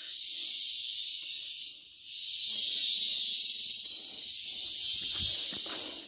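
Chorus of forest insects: a steady high-pitched buzz that swells and fades every couple of seconds. Low rustling of footsteps and camera handling underneath in the second half, with a dull thump near the end.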